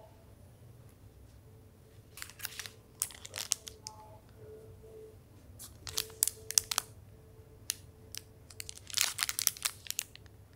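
Clear plastic sleeve around a packaged toothbrush and toothpaste crinkling as it is handled and turned over, in several short spells of crackling, the densest near the end.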